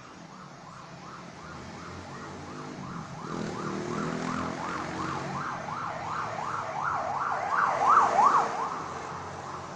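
Ambulance siren in a fast up-and-down yelp, about two sweeps a second. It grows louder as the ambulance approaches, is loudest about eight seconds in as it passes, then fades. Road traffic engines run underneath.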